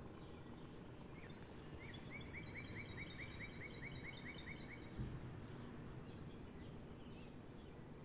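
A songbird sings a fast run of about a dozen repeated short notes, about four a second, over steady outdoor background noise, with a single dull thump about five seconds in.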